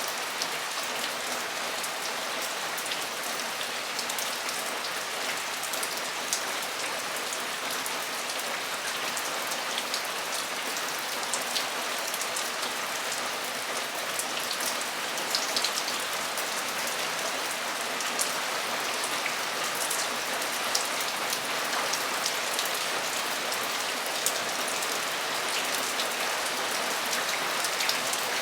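Torrential rain drumming steadily on a metal roof, a dense even hiss of drops with scattered sharper individual drop ticks.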